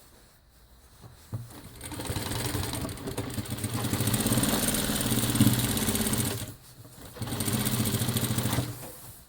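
Jack JK 9100-BH industrial lockstitch sewing machine stitching at speed with a fast, even rattle. It runs for about five seconds, stops briefly, then runs again for under two seconds.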